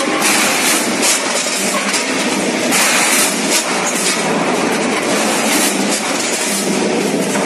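A multihead weigher on a chicken-parts packing line running: steady, dense mechanical clatter of its hopper gates and the pieces dropping through its chute, with louder clattering surges about once a second.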